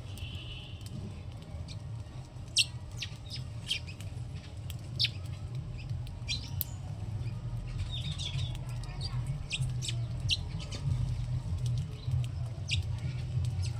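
Small birds chirping: many short, sharp, high chirps at irregular intervals, over a steady low rumble.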